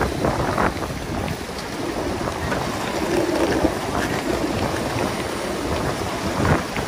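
Wind buffeting a phone's microphone over the steady rumble of skateboard wheels rolling on city pavement at speed.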